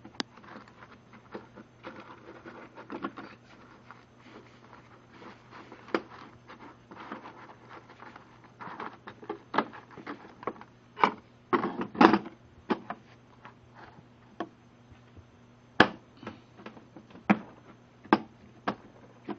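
Hand tools and their plastic holder being handled: irregular clicks, light knocks and rubbing as the Allen wrenches are worked back into place, with a burst of louder knocks about twelve seconds in and a few single sharp clicks near the end.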